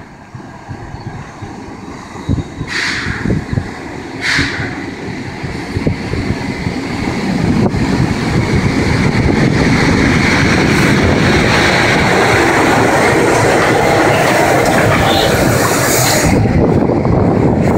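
PKP class Pt47 steam locomotive (Pt47-65) with its passenger train, drawing nearer and passing close by. It grows from a distant rumble to a loud, steady rumble of wheels and running gear about halfway through. Two short, sharp noises come a few seconds in.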